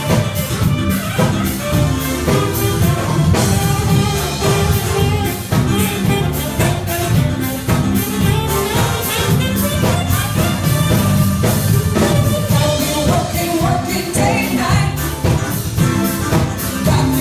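Live soul/R&B band playing an upbeat song with a steady beat: drum kit, electric guitar and saxophone, with singers' voices over the top.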